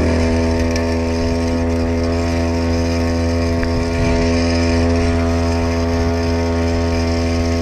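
The small engine of a motorized bicycle runs at a steady throttle with an even pitch, after revving up just before.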